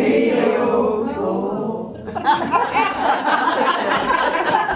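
An audience singing the word "radio" together, drawn out, as the response in a call-and-response singalong. About two seconds in, the group singing gives way to scattered laughter from many people.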